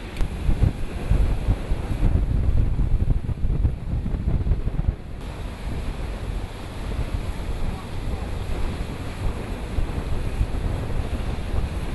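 Wind buffeting the microphone in gusts, heaviest in the first few seconds, over the wash of sea waves.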